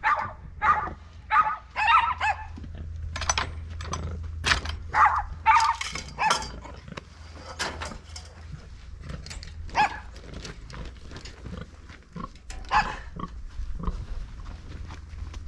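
An animal, dog or pig, calling in a quick series of short, high cries through the first half, then a few scattered ones later, over a steady low hum.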